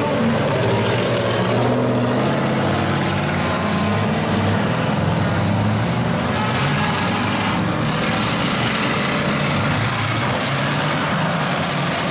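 Demolition derby pickup trucks' engines running and revving together, a loud, continuous mechanical din whose pitch rises and falls as the trucks push and manoeuvre.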